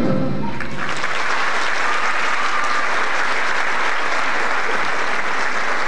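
The last sung chord of a musical number dies away in the first half second, then an audience applauds with steady clapping.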